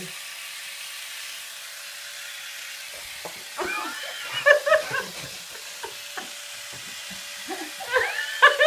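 Corded electric epilator running against chest skin, a steady buzzing whir as its rotating tweezers pluck hair. A man's pained vocal noises break in about a third of the way through and again near the end.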